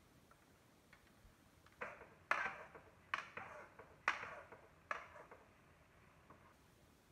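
Metal spoon stirring chopped tomatoes and onions in a pan, scraping the pan in about five quick strokes between about two and five seconds in.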